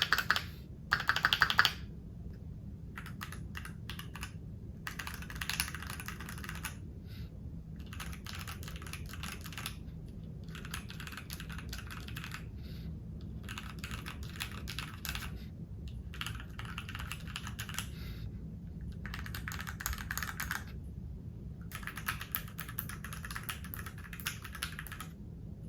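Typing on a Keychron Q1 V2 aluminium mechanical keyboard with red linear switches: runs of rapid key clacks in bursts of a second or two with short pauses between, the first run the loudest.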